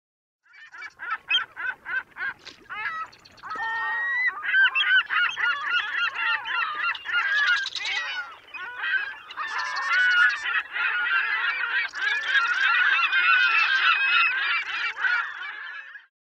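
A flock of birds calling together, many overlapping calls at once. It starts about half a second in with a quick series of short calls, thickens into a dense, continuous chorus, and cuts off just before the end.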